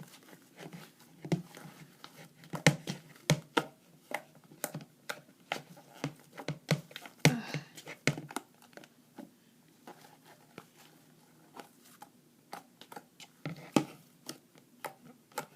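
Sticky fluffy slime of PVA glue and shaving foam being scraped off a bowl and worked by hand, giving irregular wet clicks, pops and tearing sounds. The pops come thickly for the first several seconds, thin out in the middle and pick up again near the end.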